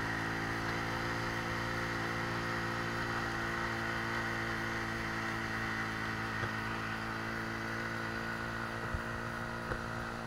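Motorcycle engine running at a steady speed while riding, heard from the rider's seat, with road and wind noise and a few light knocks near the end.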